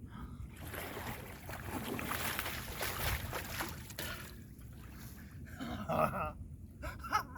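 Water splashing and sloshing for about three and a half seconds as a large striped bass is lifted at the river's surface, followed by brief short vocal sounds near the end.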